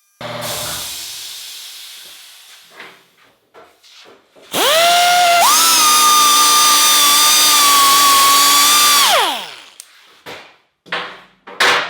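Electric grinder running free: a noisy burst fading away, then the motor spinning up with a rising whine, running steady for about four seconds and winding down. A few short knocks of handling near the end.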